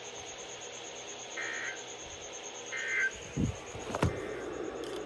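Emergency Alert System end-of-message data bursts: two short warbling digital chirps about a second and a half apart, marking the end of the tornado warning broadcast, over a steady hum. A low thump and then a sharp click follow in the second half.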